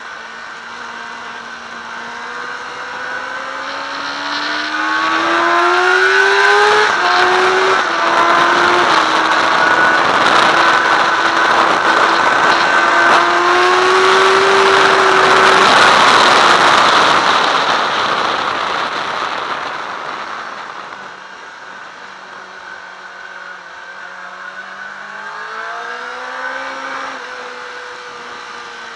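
Onboard sport-motorcycle engine accelerating hard, its pitch climbing and stepping through upshifts, with wind noise over the camera swelling to a loud rush at speed in the middle. The throttle then closes, the wind dies down, and the engine steps through lower revs into the next corner near the end.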